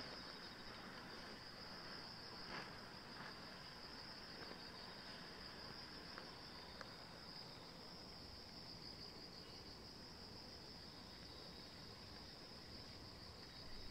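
Faint, steady, high-pitched insect chirring: one unbroken trill, with a few soft clicks over it.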